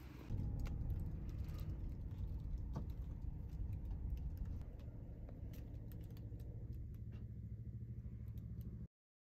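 Low rumble of a car cabin with the engine running, with the light crackle of a thin plastic carrier bag being handled. The sound cuts off suddenly near the end.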